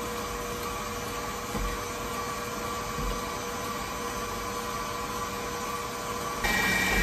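Electric tilt-head stand mixer running steadily with its paddle, whipping a butter, sugar and egg cookie dough to beat air into it: a steady motor whine. About six and a half seconds in it is turned up to a higher speed, and the whine gets louder and higher.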